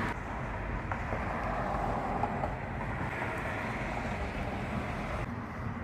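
Steady rushing noise of storm wind and rain, even throughout, with no thunderclap.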